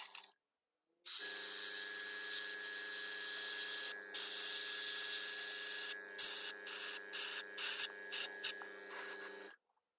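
Airbrush spraying paint with a steady hiss, then in a string of short spurts as the trigger is pressed and released, over the steady hum of a small airbrush compressor. The sound cuts out completely for a moment near the start and again just before the end.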